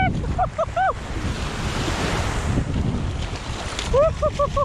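Small surf washing on the sand and wind buffeting the action camera's microphone, while a hooked fish splashes at the surface. In the first second, and again about four seconds in, there is a quick series of short calls that rise and fall in pitch.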